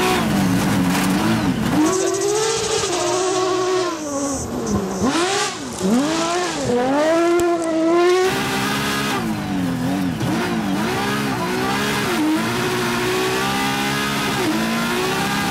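The MC2 rally car's 450 HP RenaultSport V6 at full attack on a rally stage: it revs hard, then drops back over and over with gear changes and throttle lifts.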